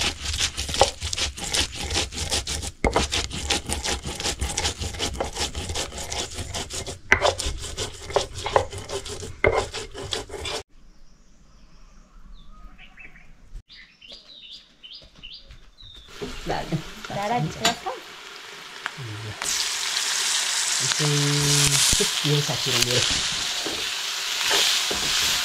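Food frying in a pan. First there is dense crackling with stirring, then it cuts abruptly to a much quieter stretch with a few faint chirps. About twenty seconds in, a steady hiss of sizzling takes over.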